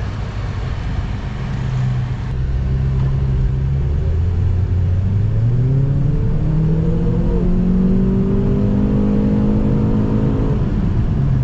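Semi-tuned car's engine heard from inside the cabin, accelerating hard: its note climbs steadily in pitch for several seconds, then drops away near the end.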